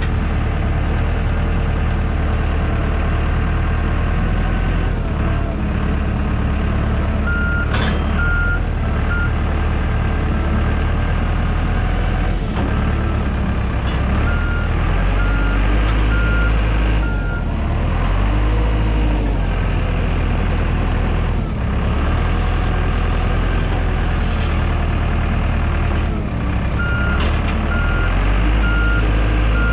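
Compact machinery's engine running continuously, its pitch shifting as throttle and load change. A backup alarm beeps about twice a second in several spells as the machine reverses.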